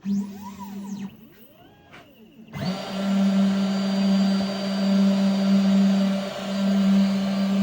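Genmitsu 3020 PRO MAX V2 CNC router: its stepper motors whine up and down in pitch as the axes move. About two and a half seconds in, a loud motor starts and runs steadily with a strong hum.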